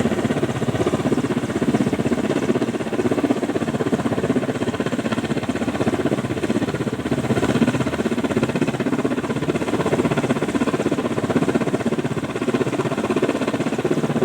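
Helicopter running steadily and loudly, its engine and rotor making a fast, even pulsing drone.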